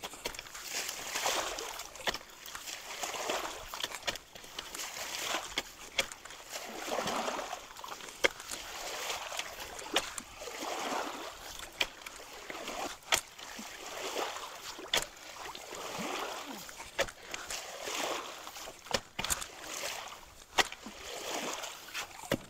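Creek water sloshing and splashing in repeated surges as people wade and rake brush out of a log jam at a culvert, with many sharp clicks and knocks from the sticks and rake scattered through.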